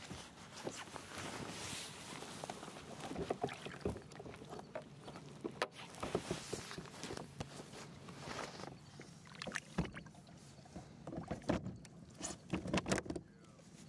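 Hobie Outback pedal kayak moving on the water: water washing along the hull with scattered knocks and clunks from the boat and its gear. A run of louder knocks comes near the end.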